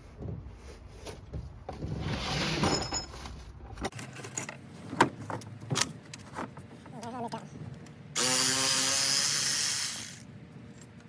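Metal tools clinking and knocking on an engine being torn down, then a handheld power tool runs steadily for about two seconds near the end, loosening bolts on a small block Chevy 350.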